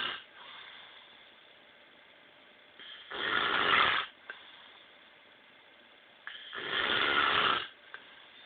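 A man snoring in his sleep: two loud snores, each about a second long and about three and a half seconds apart, with the end of another right at the start.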